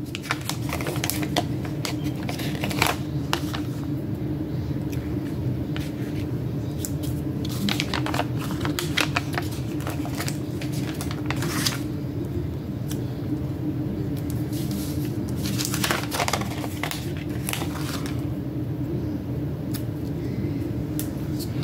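Paper sticker sheets and planner pages being handled, crinkling and rustling, with scattered light clicks and taps as stickers are peeled off with tweezers and pressed down. A steady low hum runs underneath.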